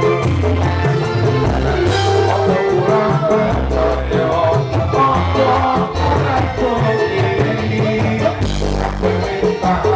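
Live dangdut band music with a man singing into a microphone over a steady beat and bass line.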